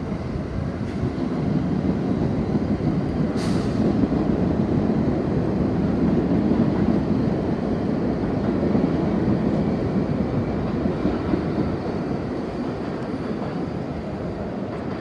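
A B train of R68-series subway cars runs along the rails and pulls away. The steady rumble of wheels on track builds over the first few seconds and eases as the train recedes. A brief sharp hiss comes about three and a half seconds in.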